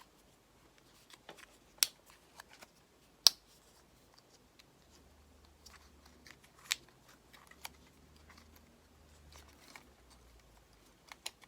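Apple EarPods packaging being handled and opened: a few sharp plastic clicks, the loudest about two, three and seven seconds in, with smaller ticks and light rustling between.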